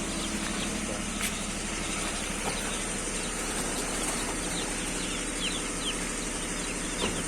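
Young broiler chicks peeping: many short, high, falling chirps, several a second, growing busier after the first few seconds, over a steady low hum.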